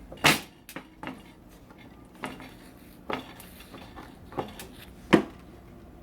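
Sharp clinks and knocks of small metal and plastic parts being handled, about seven in all at uneven spacing, as screws are put back into the appliance's housing; the loudest come near the start and about five seconds in.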